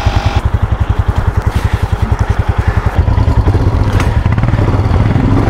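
Royal Enfield Himalayan's single-cylinder engine running on the move, its exhaust beat a fast, even pulse. About three seconds in the engine picks up and the beat smooths into a louder, steadier run.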